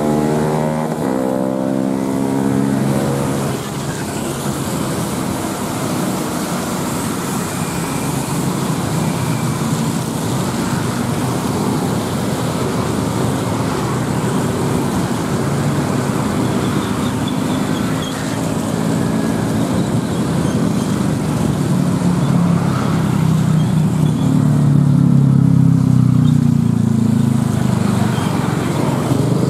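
Road traffic on a wet road: a passing intercity bus's diesel engine fades with a falling pitch over the first few seconds. Then a steady hiss of tyres on wet tarmac runs under car and motorcycle engines, and a heavier engine grows louder near the end.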